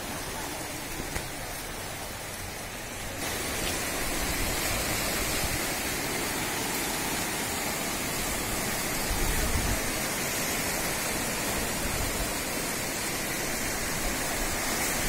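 Muddy floodwater rushing fast down a swollen stream, a steady churning hiss of water. About three seconds in it becomes louder and fuller, where the flood pours over a concrete weir in white rapids.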